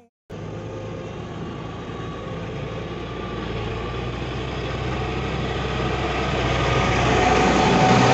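Massey Ferguson 7480 tractor's six-cylinder diesel engine running steadily as the tractor drives up and passes close by; it sets in suddenly a moment in and grows steadily louder to its peak near the end.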